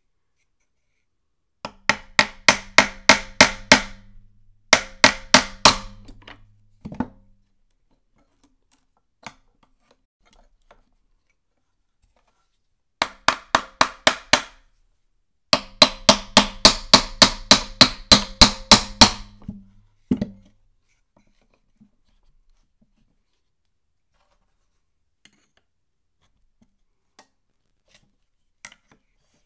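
A small ball-peen hammer taps rapidly on the flywheel of a vintage Remington chainsaw to break it loose from the crankshaft keyway, with a screwdriver prying it up from the other side. The taps come about five a second in several runs with short pauses, each with a brief metallic ring, and stop about two-thirds of the way through.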